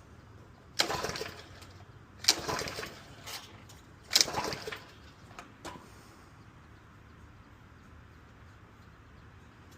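Three pulls on a pressure washer's recoil starter cord, each a sharp rasp that fades over about a second, with the small engine turning over but not catching.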